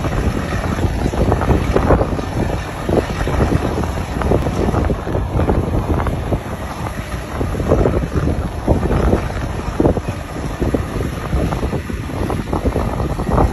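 Wind buffeting a phone's microphone: a loud, gusty rumble that rises and falls irregularly.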